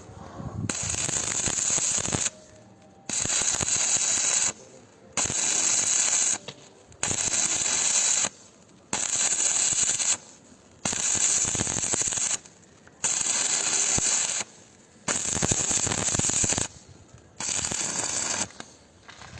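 Electric arc welding with an electrode: a crackling, sizzling arc struck about nine times in a row, each burst lasting a second or two with short pauses between.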